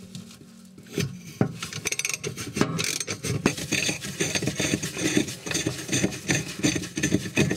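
Ratchet with a 10 mm socket on an extension clicking fast as it turns the fan blade's left-hand-threaded nut on an oven fan motor shaft to undo it, with a couple of knocks about a second in.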